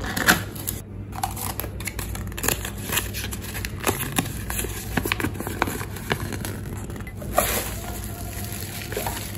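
Hands opening a cardboard gift box, handling a paper card and pulling plastic bubble wrap off a mug: a run of short rustles and clicks, thicker about seven seconds in.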